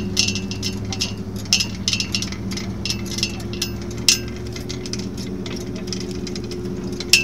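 Truck engine running steadily while driving along a bumpy dirt road, with irregular sharp metallic clinks and rattles every second or so.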